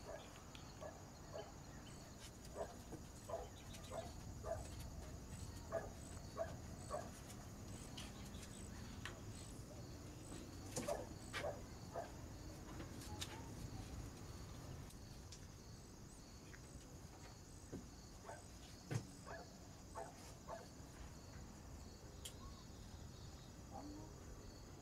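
Faint outdoor ambience with an insect chirping steadily, about two chirps a second. Scattered faint clicks and knocks come through it.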